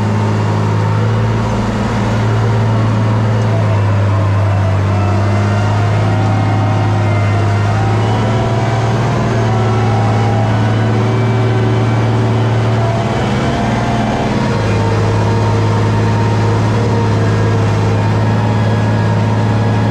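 International Harvester 1466 tractor's turbocharged six-cylinder diesel running steadily while pulling a moldboard plow, heard from inside the cab.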